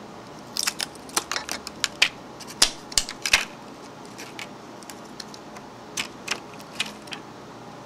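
Irregular clicks and crackles of hands peeling a strip of tape off a 2.5-inch laptop hard drive and handling the drive and its flex connector, thick for the first few seconds and sparser after.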